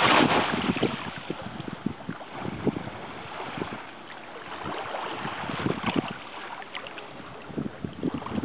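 Wind buffeting the microphone, strongest at the start and then easing off, with small splashes and lapping of shallow sea water throughout.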